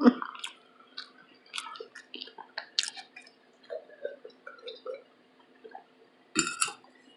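Close-miked wet chewing and mouth clicks from eating corn on the cob, with a louder smack about six and a half seconds in.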